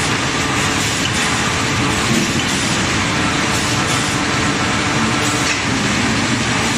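Automatic veneer peeling machine line running, with a steady, loud machine noise as the peeled veneer is carried over the rollers and conveyor.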